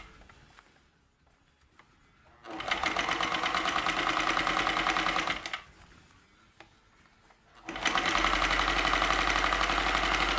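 Kenmore 158.1040 sewing machine running a straight stitch in two bursts of about three seconds each, with a fast, even needle rhythm over the motor hum. It stops in between while the fabric is repositioned.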